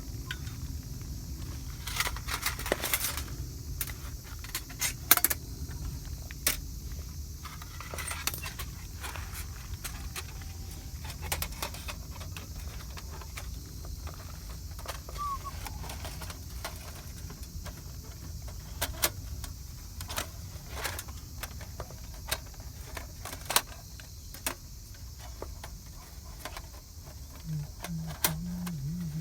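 Metal objects clinking and rattling as they are handled, in irregular sharp clicks and knocks over a steady low rumble.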